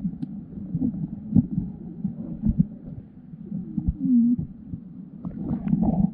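Muffled underwater sound picked up by a submerged camera: a low rumble with irregular soft thumps as water moves around it. A muffled hum swells briefly about four seconds in.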